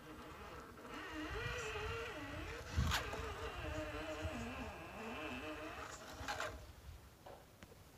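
Axial UMG10 RC crawler's small electric motor whining as it crawls, its pitch rising and falling with the throttle. There is a sharp knock about three seconds in, and the whine stops shortly before the end.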